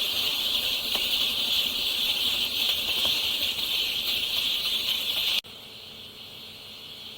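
Dense, steady high-pitched cheeping of a large crowd of newly hatched chicks, cutting off abruptly about five and a half seconds in and giving way to a quieter steady background.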